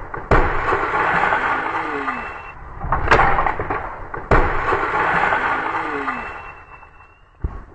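Loud crashes of something heavy coming down and breaking, each a sudden hit followed by a rush of splintering noise that fades over a couple of seconds; the crash sounds three times, with a sharp crack about three seconds in.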